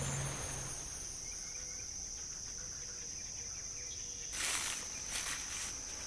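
An insect's steady, high-pitched trill from the woods, with a brief rush of noise about four seconds in.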